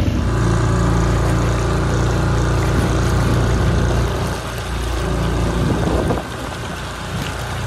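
Dinghy outboard motor running steadily under way, with water rushing and churning along the inflatable's hull. The motor gets a little quieter about four seconds in and again around six seconds.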